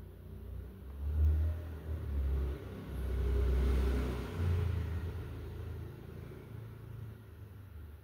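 A low rumble that swells and then fades over several seconds, loudest about halfway: a motor vehicle passing.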